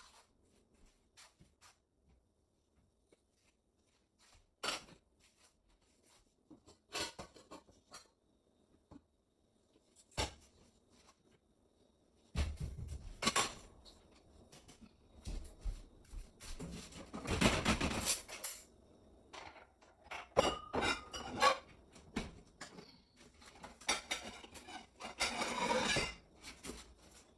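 Dishes, pots and pans being handled and put away, with scattered clinks and knocks at first, then a busier stretch of clattering from about halfway through.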